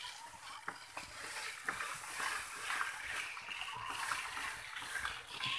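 Footsteps through short grass: a soft rustling hiss with faint, irregular ticks about once a second.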